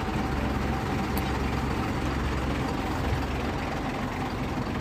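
Eicher truck's diesel engine idling steadily with a low, even hum.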